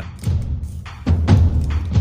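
Background music with deep drum hits, the heaviest starting about a second in.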